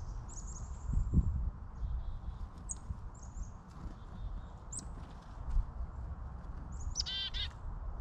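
Small woodland birds calling: short, high, thin notes scattered throughout, and about seven seconds in a harsher call of several quick notes. A steady low rumble lies underneath.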